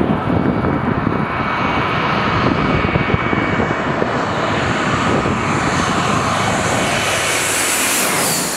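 Airbus A321's twin IAE V2533 turbofan engines on landing approach, a steady roar with a high whine that builds as the jet comes in low and peaks as it passes overhead near the end.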